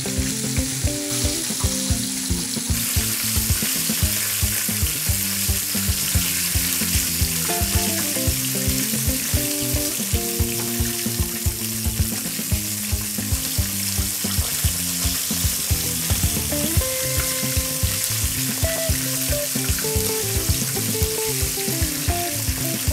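Chicken drumsticks in seasoned flour shallow-frying in hot oil: a steady, dense sizzle that grows stronger about three seconds in. Background music with a steady beat plays under it.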